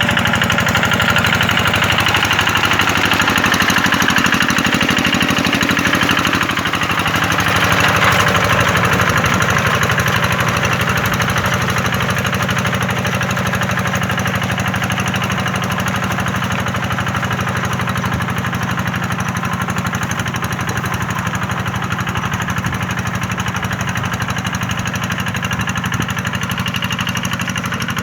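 Tractor engine running steadily with a fast chugging pulse, swelling a little about eight seconds in.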